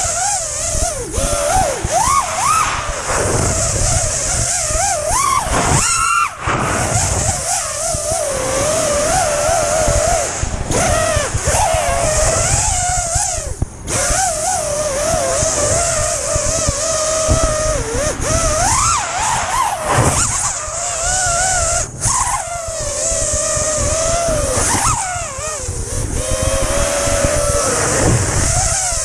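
Brushless motors and propellers of an FPV racing quadcopter whining in flight, the pitch wavering constantly and sweeping up sharply with several throttle bursts, over heavy wind rumble on the onboard microphone.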